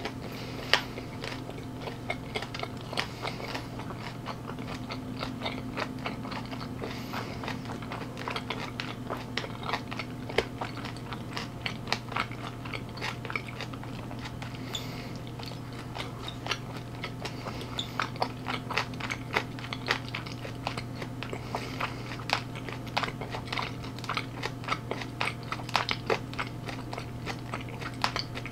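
Close-miked chewing and crunching of food, with many small crisp crunches all through, over a steady low hum.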